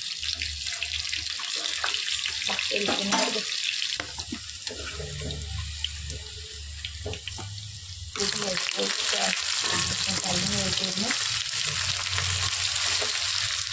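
Potato chunks frying in hot oil in an aluminium pan: a steady sizzle with the clinks and scrapes of a steel ladle turning and lifting them. About eight seconds in, the sizzle suddenly gets louder as sliced raw onions fry in the oil.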